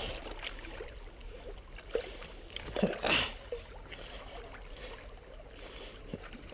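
Seawater lapping and washing among shore rocks, with a few brief, sharper sounds about two and three seconds in as a hooked dogfish is handled in the shallows.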